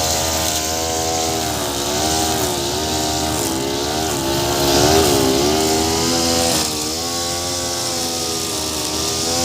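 Petrol brush cutter engine running at high speed while cutting grass. Its pitch dips and recovers again and again as the cutting head meets the grass.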